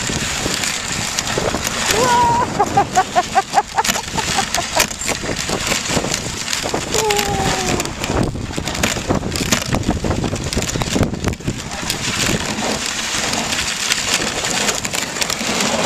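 Dog sled moving fast over snow: the runners scrape and hiss steadily, and the sled knocks and rattles often. A voice calls out briefly about two seconds in, with a string of short pulses after it, and once more with a falling call near eight seconds.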